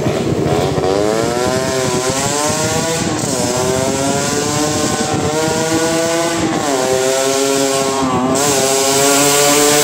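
Motorcycle engine running while being ridden, its note rising and dipping several times as the throttle is opened and eased.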